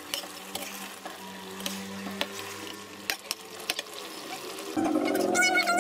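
Metal spoon stirring chicken feet and carrots in a sauce in a pan: soft wet stirring with scattered light clicks over a steady faint hum. Near the end a louder voice-like sound with rising and falling pitch comes in.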